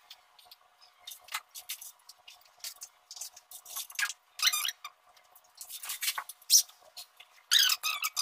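Scattered clicks and rubbing from handling a wall-mounted pull-down projection screen as it is hung and drawn down, turning into a run of louder squeaks near the end.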